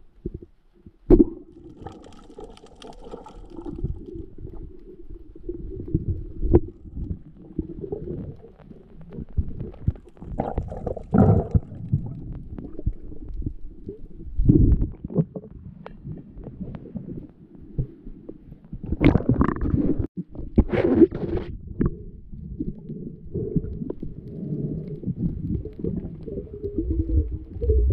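Muffled underwater rumbling and knocking from a camera housing on a spearfishing dive, broken by one sharp crack of the speargun firing about a second in. Bubbly gurgles come and go as the diver breathes out and handles the speared fish.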